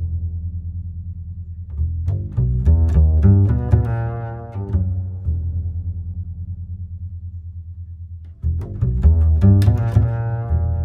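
Background music led by bowed low strings, double bass and cello, with a steady low pulse and shifting notes above it.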